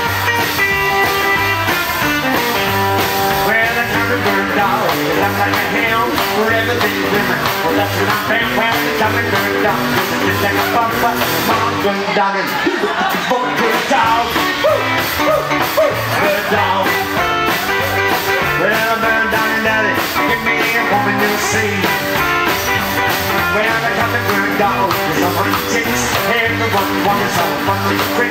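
Rockabilly band playing live: electric guitar, upright bass, drums and acoustic guitar with a man singing at the microphone. The lowest notes drop out for a moment about halfway through.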